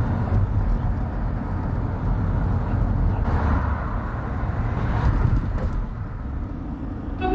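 A car driving along a road: steady engine and tyre noise, swelling a little in the middle as oncoming cars pass.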